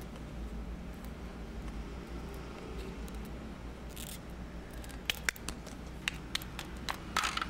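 Small plastic toy figurines clicking and tapping on a wooden floor as they are handled, over a steady low hum. The clicks come scattered and sharp, mostly in the second half, with a short hiss about four seconds in.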